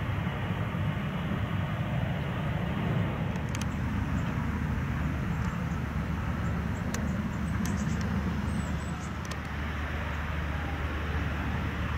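Steady low rumble of jet engines at taxi power from a Boeing 747-8 taxiing, its GEnx turbofans heard from a distance without a clear whine.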